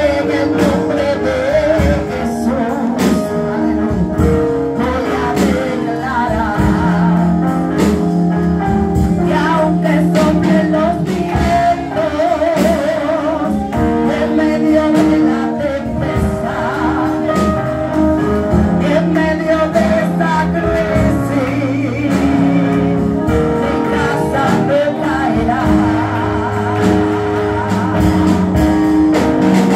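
Live gospel worship music: a woman sings a wavering melody into a microphone over instrumental accompaniment with held chords.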